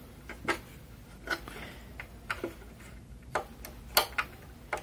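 Light clicks and taps at an uneven pace, about ten in all, the sharpest about four seconds in: hands and camera handling the opened CRT television's plastic cabinet and chassis.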